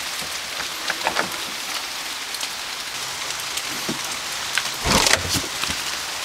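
Steady hiss of rain, with scattered clicks from a door lock and handle being worked and a louder thump about five seconds in as the door is pushed open.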